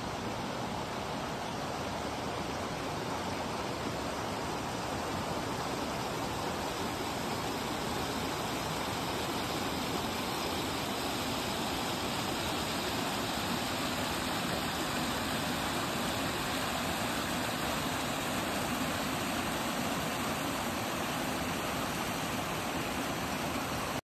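Stream water rushing over rock ledges and small cascades, a steady even rush that grows a little louder over the first few seconds.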